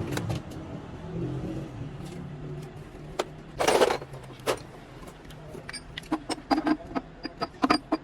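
Metal parts and tools clinking and knocking in short sharp strikes, coming thick from about six seconds in, over a steady low hum. A half-second burst of noise comes about three and a half seconds in.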